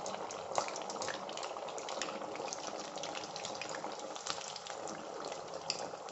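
Stuffed semolina nuggets deep-frying in hot oil in an iron kadhai: a steady sizzle full of fine crackles and pops. The nuggets have only just gone in and are still settling.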